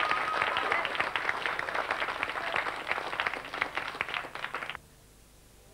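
Audience applauding, with a long held whistle at the start. The applause cuts off suddenly near the end.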